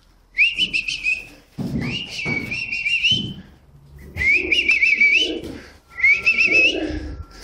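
A person whistling to call young racing pigeons down to their feed: four separate warbling whistles, each about a second long.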